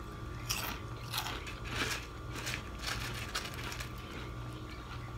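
Sour cream and onion potato chips crunching as a person bites and chews them, a series of short crunches.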